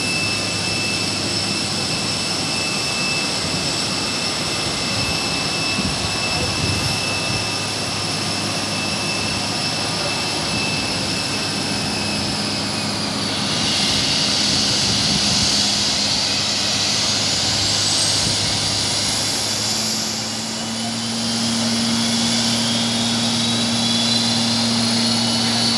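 Airbus A320's jet engines running on the ground, a steady high-pitched whine over a low hum. About halfway through the whine shifts higher, and faint rising tones follow. The low hum gets stronger near the end.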